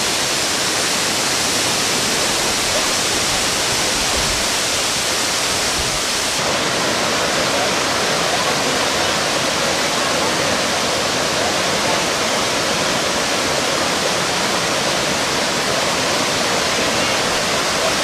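Rocky Brook Falls, a tall waterfall, making a steady roar of falling water. About six seconds in it gives way to a brook running and burbling over rocks.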